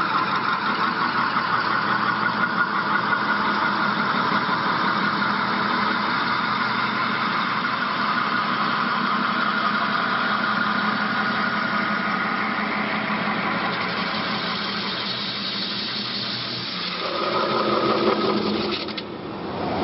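CNC metal spinning lathe running, a large sheet-metal part turning on its mandrel while the forming rollers press along it: a steady mechanical hum with a ringing whine above it. Near the end the pitch shifts and the sound swells, then drops off sharply.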